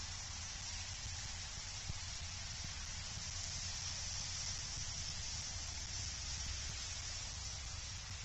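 Steady outdoor ambience picked up by the eagle nest cam's microphone: an even hiss with a low rumble underneath, and no distinct calls or knocks.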